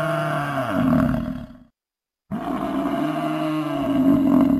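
Deep, drawn-out animal roar on a steady low pitch that sags and breaks off abruptly, then after a short silence a matching roar starts about two seconds in. The hard cuts and repeated shape mark it as a dubbed-in sound effect.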